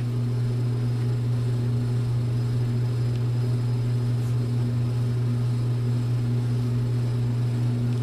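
A steady low background hum with a fainter, higher steady tone above it, unchanging throughout.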